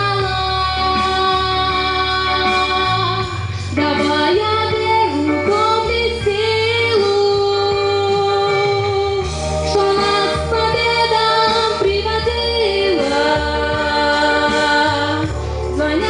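A woman singing into a microphone over an instrumental backing track with a steady bass line. She holds long notes that bend in pitch, and no words are picked out.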